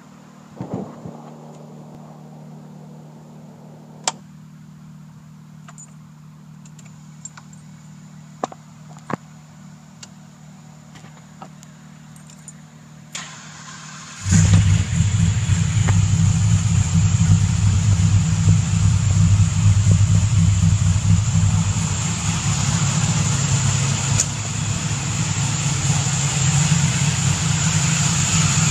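Procharger-supercharged 363 cubic-inch Ford small-block V8 in a Fox Body Mustang: a few sharp clicks over a steady low hum, then the engine fires about halfway through and keeps running loudly at idle.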